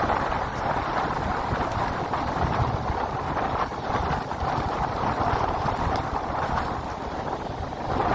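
Strong wind blowing over the microphone in a steady rush with gusty low buffeting, with Lake Michigan waves washing onto the shore beneath it.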